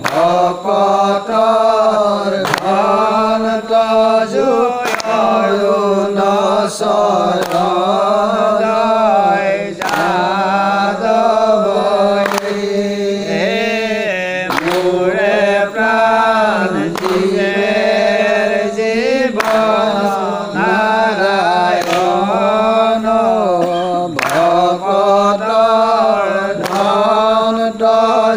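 Assamese naam-prasanga devotional chanting: a voice sings a wavering, ornamented melodic line over a steady held low note. A sharp strike cuts through about every two and a half seconds.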